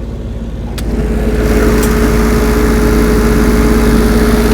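Perkins 403D-11 three-cylinder water-cooled diesel engine of a Lincoln Dual Maverick 450 welder running at a steady speed. About a second in there is a click, and the engine turns louder and clearer as the service door on its sound-deadened case is opened.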